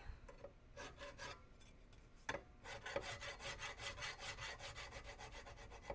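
Coarse hand file rasping across a steel shotgun barrel rib in short draw-filing strokes. The strokes are faint at first; a single knock comes a little after two seconds, then they settle into a steady rhythm of about four a second. The file is stripping old solder and rust off the rib down to bright metal, to prep it for re-soldering.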